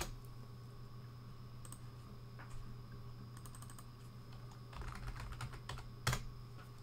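Computer keyboard keystrokes: a single sharp key press at the start, then a quick run of typing about five seconds in that ends with a harder key press. A low steady hum runs underneath.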